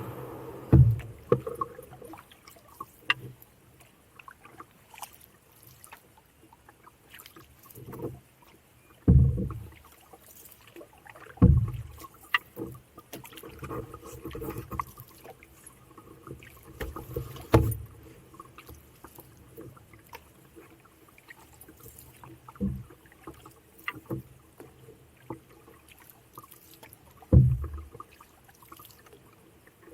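Canoe being paddled: six low thuds a few seconds apart as the paddle strokes and knocks against the hull, with faint water sounds between.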